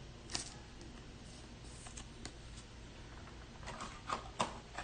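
Trading cards being handled and slid through a stack: faint rustles and soft clicks, with a cluster of sharper card clicks near the end.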